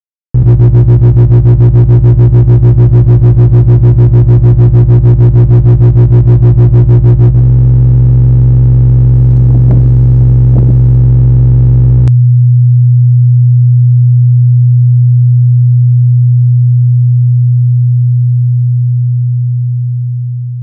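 Loud electronic low tone, a synthesized drone near the pitch of a mains hum, starting abruptly. It throbs rapidly, about seven pulses a second, for the first seven seconds, then runs steady with a buzzy edge, and from about twelve seconds in only the bare low tone remains, slowly fading.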